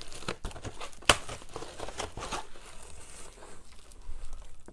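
Packaging crinkling and rustling as Blu-ray purchases are handled and unwrapped, with scattered light clicks and one sharp click about a second in.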